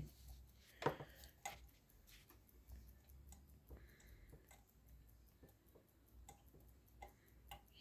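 A few light clicks and taps from handling the Pfaff 204 sewing machine, the loudest about a second in, with fainter ones scattered after, over a faint low hum.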